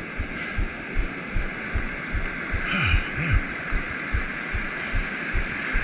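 Ocean surf washing in over the sand as a steady hiss, with wind buffeting the microphone in irregular low thumps.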